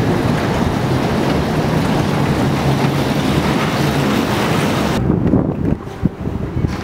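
Loud, steady din of an amusement arcade mixed with rubbing and buffeting on the camera microphone. About five seconds in the sound turns muffled, with a couple of knocks, as the microphone is covered.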